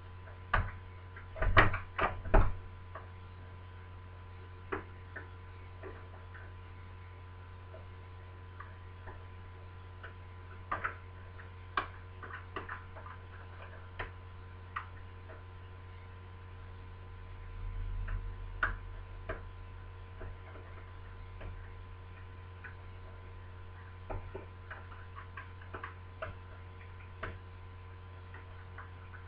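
Irregular small metallic clicks and ticks of a lever-lock pick working the levers inside a BS 3261 lever deadlock, with a few louder clicks in the first couple of seconds, over a steady low hum.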